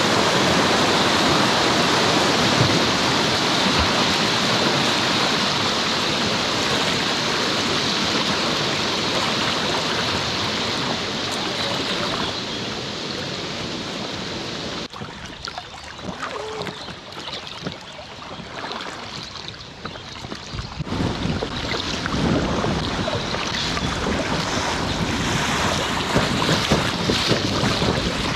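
Rushing river water with wind noise on the microphone. About halfway through, after a sudden cut, it drops quieter, with scattered small splashes. From about three quarters of the way through it swells again.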